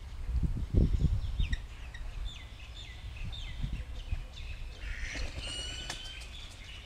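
Birds chirping by a river: many short, downward-sliding chirps, with a longer, higher, ringing call a little after five seconds in. A low rumble comes about a second in.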